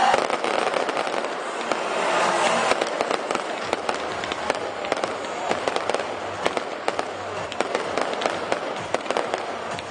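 Fireworks display: aerial shells bursting overhead amid a dense, continuous crackle of many sharp, overlapping pops.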